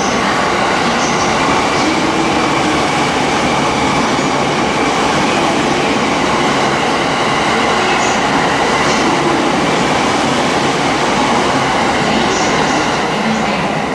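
E657 series electric train running through a station at speed without stopping: a loud, steady rush of wheels on rail and running gear, with a few short clicks from the wheels going over rail joints.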